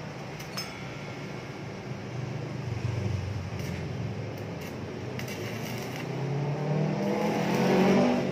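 A motor running, with its pitch and loudness rising near the end as it speeds up.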